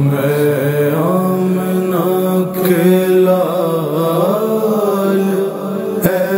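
A male voice sings a naat, an Urdu devotional song, in a slow, ornamented melodic line over a steady low drone.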